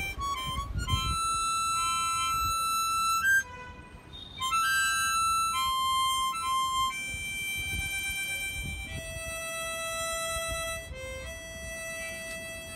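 Harmonica playing a melody of long held notes, cupped in the player's hands, with a brief break about three and a half seconds in.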